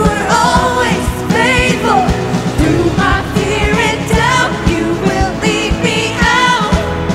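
Live contemporary worship song: women singing the melody over a full band of drums, electric guitar and keyboard, with a steady beat.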